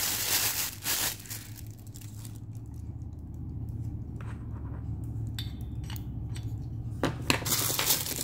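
A clear plastic bag crinkles as it is pulled off a metal scissor-type microphone boom arm. The sound then quiets to a low steady hum with a few small clicks. Near the end comes a run of sharp clicks and clatters as the arm's metal joints and springs are handled.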